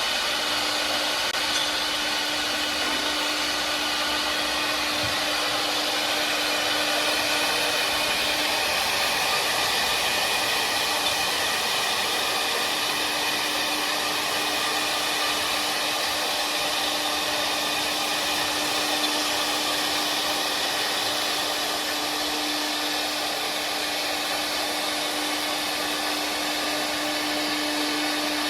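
Four-head CNC wood carving machine running, its high-speed spindles giving a steady whine over a continuous cutting noise, with a low hum that drops out for a few seconds about a third of the way in.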